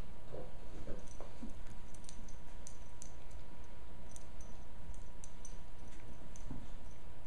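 Scattered faint sharp clicks and a few soft short sounds from a pit bull and a tiny puppy play-wrestling and mouthing each other, over a steady low hum.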